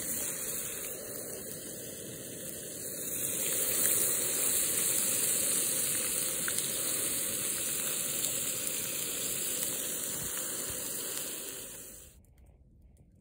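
Antelope backstrap and onions sizzling in a frying pan, a steady hiss that stops near the end.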